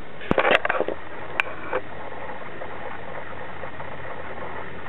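Sharp clicks and a short clatter in the first two seconds as the record changer's tonearm and mechanism are handled, then a steady low hum and hiss.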